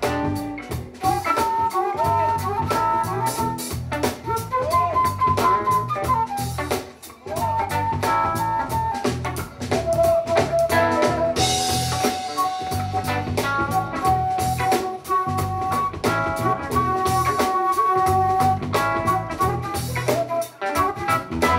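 Flute solo, a running melodic line, played live over a funk band's drum kit and bass groove.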